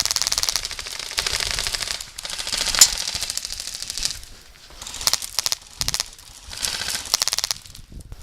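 Airsoft guns firing several rapid full-auto bursts of pops, with short pauses between them, and one sharper, louder crack nearly three seconds in.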